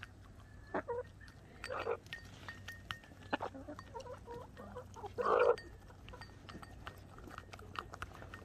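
Several chickens pecking cheese grits out of a small bowl: many quick beak taps against the bowl, with a few short clucks, the loudest about five seconds in.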